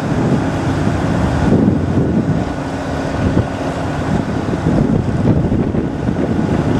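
Boeing 737-700's CFM56 jet engines rumbling steadily as the airliner touches down and rolls out along the runway, with heavy wind buffeting on the microphone.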